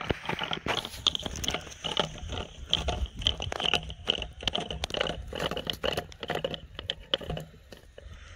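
Rope being hauled in hand over hand across grass: a dense, irregular run of rustles and crunches that dies down near the end.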